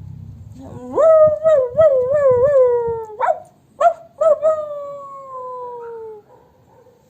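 A woman imitating a dog howling like a wolf. A howl rises about a second in and wavers in pitch, then come three short yelps, then a long howl that slowly falls away.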